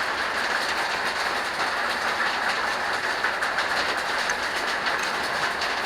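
Waterfall running steadily, an even rushing of falling water with faint scattered drips and splashes.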